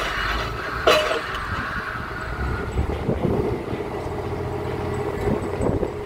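Pile-driving rig's machinery running steadily with a low rumble, with one sharp metallic clank and brief ringing about a second in and a few fainter knocks later.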